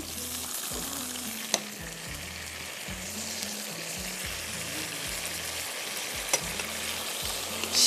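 Chili sauce sizzling in hot oil in a non-stick wok over a gas flame while a silicone spatula stirs it, with a steady hiss. Two sharp taps come about a second and a half in and again near the end.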